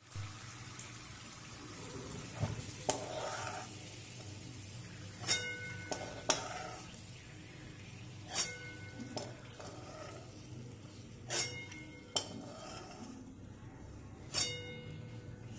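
Peanuts frying in a little oil in a steel kadhai, a soft sizzle under a steel spatula and ladle scraping in the pan. Several times a sharp metal clink rings on with a clear tone as the ladle knocks against the pan.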